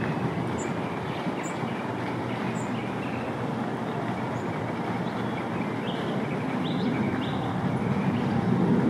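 Outdoor ambience: a steady low rumbling noise with a few short bird chirps scattered over it, a cluster of them about two-thirds of the way through.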